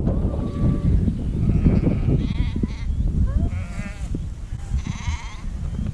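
Sheep bleating, several quavering calls, the clearest about three and a half seconds in and again near the end, over a steady low rumble.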